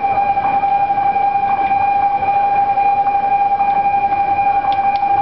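Railway level-crossing warning alarm sounding a loud, steady electronic tone without a break.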